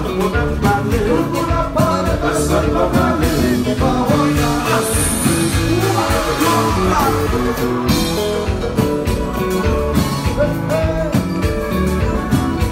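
Live Haitian konpa band playing: a male lead singer over electric guitar, bass and drums with a steady dance beat.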